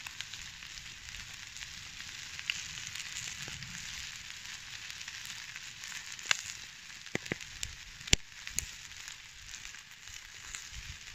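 Chicken pieces and vegetables frying in a wide steel pan over an ember fire: a steady sizzle with scattered sharp pops and crackles, several bunched together in the second half and the loudest about eight seconds in.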